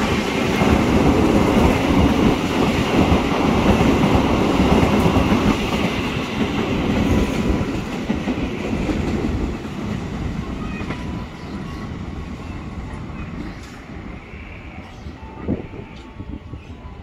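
KRL Commuter Line electric multiple-unit trains pulling out of the platform: a steady rumble of wheels on the rails, loud at first, then fading away over the second half.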